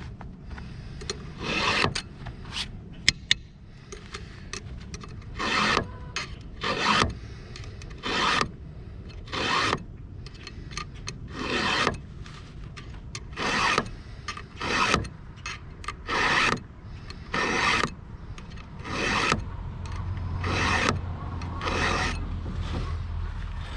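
Round file rasping across a chainsaw chain's cutters in a steady series of short strokes, about one every second or so, as the teeth are sharpened by hand. A low rumble comes in over the last few seconds.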